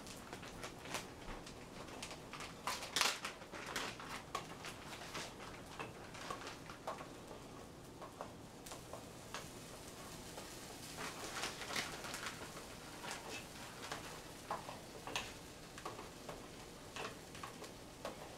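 Faint stovetop cooking sounds: irregular light clicks and crackles over a steady low hiss, from scrambled eggs cooking in a skillet on a gas burner and a spoon stirring a pot.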